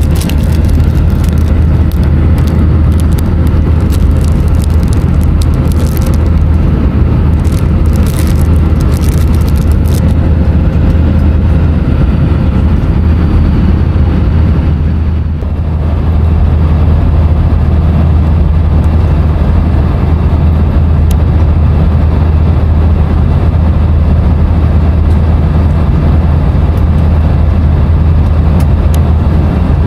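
Airbus A321 cabin noise in flight: the steady low drone of the engines and airflow. A few light clicks sound in the first ten seconds, and the drone dips briefly about halfway.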